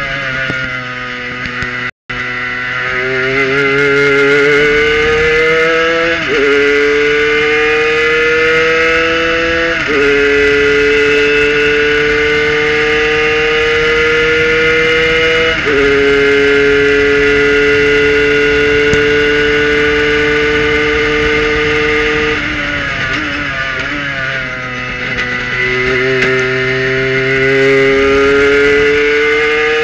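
Kohler-powered prototype race car's engine at full throttle, its note climbing and dropping sharply at upshifts about 6, 10 and 16 seconds in, then holding steady at top speed. From about 22 seconds in the note falls as the car brakes and downshifts, then climbs again under acceleration.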